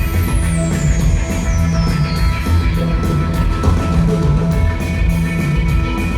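Fuzz rock band playing: heavy guitar and bass over a drum kit keeping a steady beat, with a high tone sliding down through the first couple of seconds.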